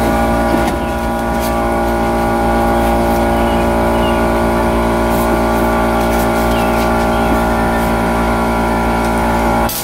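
Hydraulic press pump motor running with a steady drone, stopping abruptly near the end.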